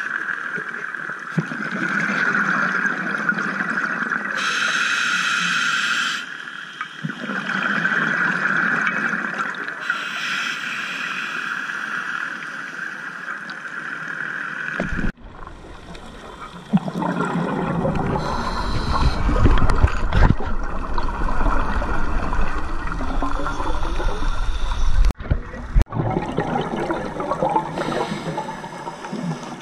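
Scuba regulator breathing heard underwater through a camera housing: hissing breaths and gurgling bursts of exhaled bubbles. About halfway through, the sound turns deeper and more rumbling.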